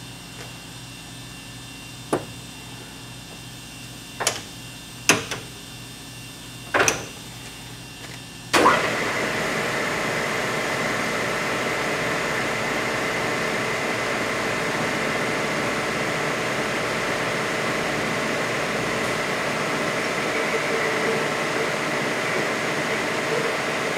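Four sharp metal knocks as a crowning tool is fitted and tightened in a lathe chuck. Then, about eight or nine seconds in, the metal lathe switches on and runs with a steady hum and a held whine.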